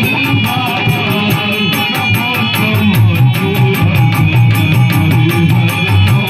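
Dholak, a two-headed hand drum, played in a fast, even rhythm over sustained melodic accompaniment.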